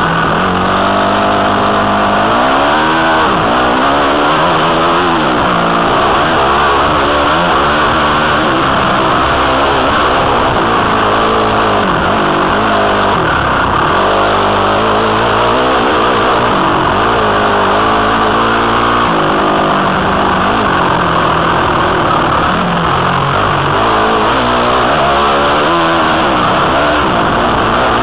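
Honda CRF250 dirt bike's single-cylinder four-stroke engine running under way, its revs rising and falling over and over as the rider works the throttle and gears, heard from the rider's helmet camera with steady noise underneath.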